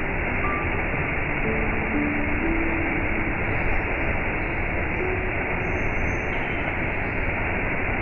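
Small waterfall rushing steadily as it pours over a rock ledge into a shallow pool, a constant, unbroken sound of falling water.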